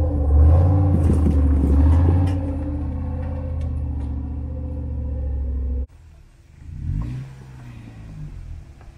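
Jeep Wrangler YJ's engine working under load as it crawls up rock ledges, loudest in the first couple of seconds with a few sharp knocks of tyre on rock, then running more steadily. It cuts off abruptly about six seconds in, leaving a quieter stretch with a brief swell of engine sound.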